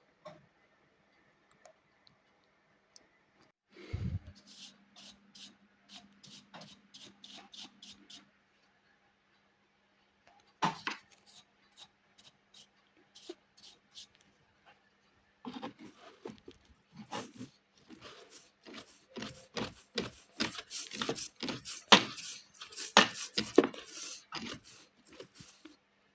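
Hands handling plastic appliance parts during disassembly. A low thump comes about four seconds in, followed by a run of quick light ticks, a sharp click, then a dense stretch of clicks, knocks and rattles in the last ten seconds.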